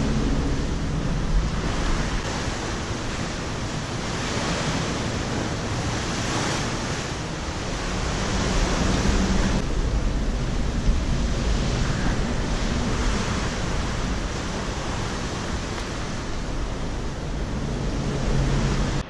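Wind buffeting the microphone over tidal water moving around the bridge footing: a steady rushing noise with a heavy low rumble that swells and eases a little.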